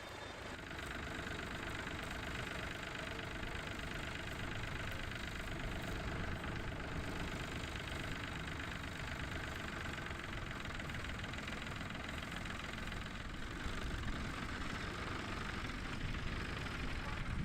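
Vintage tractor engine running steadily with a rapid knocking beat, growing a little louder.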